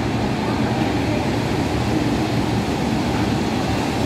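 Vintage passenger carriages rolling past at low speed: a steady rumble of wheels on the rails.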